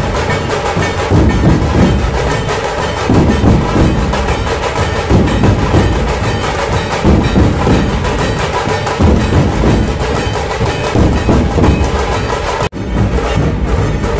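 Dhol drums beating loudly in a driving rhythm, a welcome drumming for the train; the sound drops out for an instant near the end and resumes.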